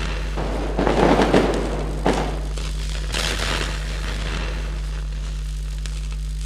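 Electric crackling and lightning sound effect with louder crackling bursts about a second in, again at about two seconds and around three seconds, over a steady low hum.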